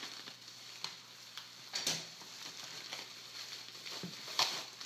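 Packaging being unwrapped by hand: light rustling and crinkling with scattered sharp clicks, two louder snaps about two seconds in and near the end.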